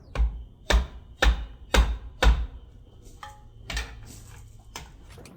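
Hammer blows on a Whirlpool washing-machine transmission housing around its cover bolts, knocking the cover loose: five sharp strikes about half a second apart, then a single strike a moment later.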